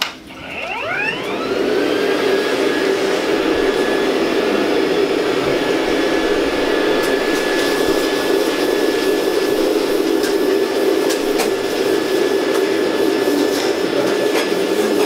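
Canister vacuum cleaner switched on with a click, its motor spinning up in a rising whine over about a second, then running steadily at full speed.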